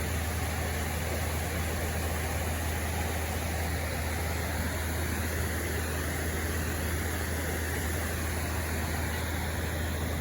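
Steady rushing noise with a constant low rumble and no distinct events.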